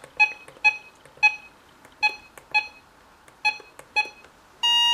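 RadioShack 12-262 weather alert radio giving short key-press beeps, about nine at irregular intervals, as its buttons step through the alert settings menu. Near the end comes a longer, louder beep.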